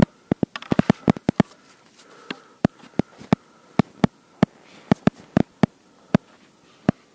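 Sharp, irregular clicks and knocks, a few a second and most frequent in the first second and a half, from a ski tourer's gear as he moves through avalanche debris on foot, carrying his skis and poles.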